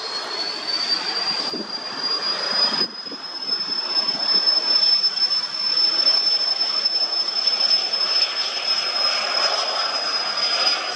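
Small twin-engine business jet's turbofans spooling up: a high whine rises in pitch over the first few seconds and then holds steady over a broad rushing jet noise, as the jet begins its takeoff roll.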